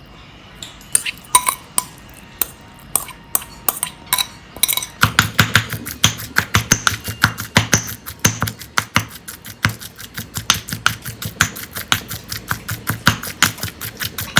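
Pestle pounding boiled fish into a spice paste in a mortar. A few scattered knocks come first, then from about five seconds in a fast, steady pounding of roughly four strikes a second, each with a dull thud.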